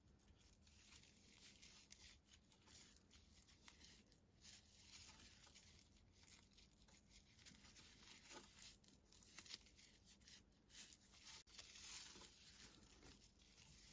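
Faint, irregular rustling and scratching of raffia yarn pulled through a crochet hook and over the fingers as double crochet stitches are worked.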